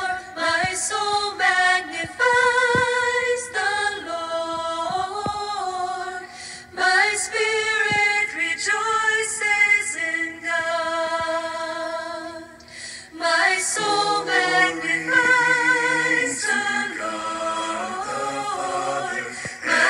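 Choir singing, the voices held on long notes with vibrato; deeper voices join about two-thirds of the way through.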